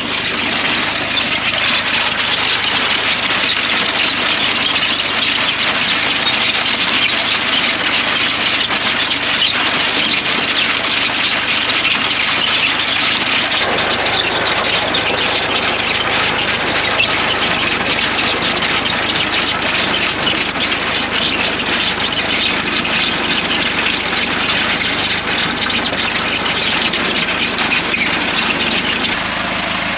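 Tractor running with a mechanical potato digger, steady dense rattling and clattering with some squeal. The sound shifts abruptly about halfway through.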